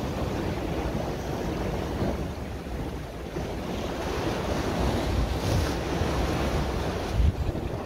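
Sea waves washing against a rocky shore, with wind rumbling on the microphone and one louder low thump near the end.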